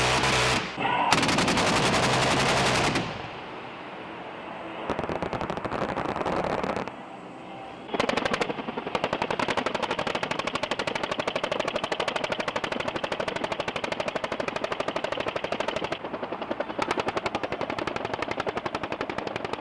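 Military automatic-weapons fire at a live-fire range: a long, loud, dense burst for the first three seconds, shorter bursts after it, then a fast, even train of reports from about eight seconds in.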